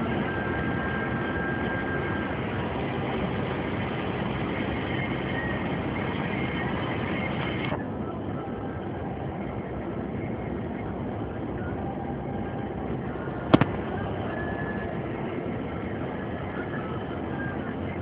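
Steady engine and road noise inside a moving vehicle's cab, with one sharp click about two-thirds of the way through.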